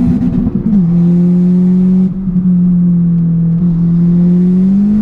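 Fiat Punto GT Turbo's 1.4 turbocharged four-cylinder under way, heard from inside the cabin. The engine note drops in pitch just under a second in, holds steady, and starts to rise again near the end.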